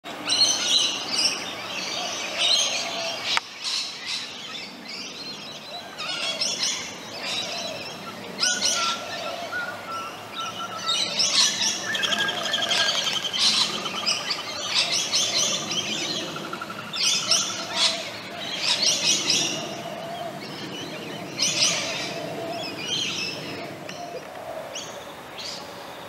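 Birdsong: bursts of high, rapid chirping and twittering repeat every second or two, with a few short held whistles in the middle.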